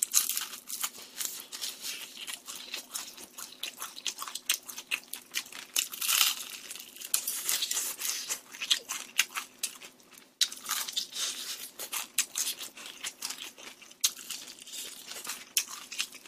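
Close-miked crunching and chewing of crispy rice-battered fried chicken (ssal tongdak). The crust crackles in many quick sharp bites, loudest right at the start and again about six seconds in.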